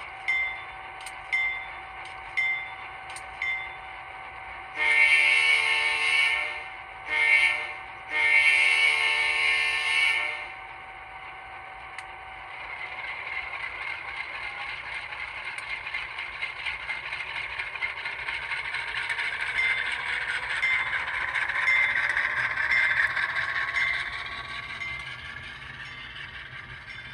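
Sound decoder of an N scale Rapido BC Rail GE C40-8M model locomotive, through its small speaker: the locomotive bell ringing about twice a second, then the K3L air horn sounding three blasts, long, short, long. After that the diesel engine sound throttles up as the train pulls away, with the bell ringing again for a few seconds, then fading near the end.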